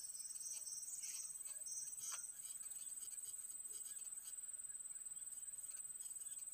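Steady high-pitched drone of insects, with a run of short high chirps in the first two seconds and a single sharp click about two seconds in.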